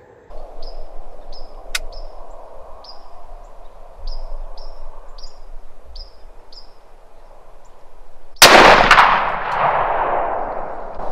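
A hunting rifle fires a single shot about eight seconds in, and the report rolls away over a couple of seconds. Before the shot there is quiet outdoor air with short high chirps repeating every half second or so.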